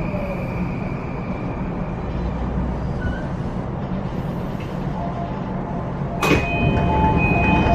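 Inside an E235 series electric train cabin: the high whine of its SiC VVFF inverter motors fades out as the train slows, leaving a steady low rumble. About six seconds in there is a sharp clunk, followed by several steady chime-like tones and clicks.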